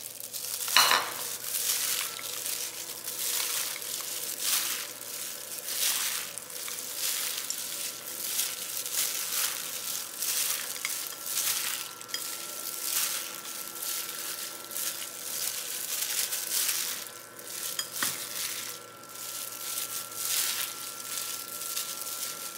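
Wide hand-pulled noodles being tossed by hand in chili-oil sauce in a glass bowl. The hand is in a plastic food-prep glove. Repeated wet, squishing strokes come roughly once a second, with a louder one about a second in.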